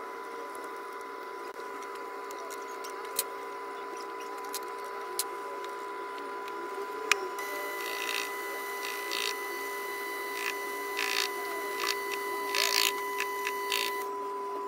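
Proxxon PD250/E mini lathe making a steady electric whine. About halfway a sharp click comes and a higher whine joins as the spindle turns. Then come intermittent scraping bursts as a centre drill in the tailstock cuts a centre hole in the end of the rebar.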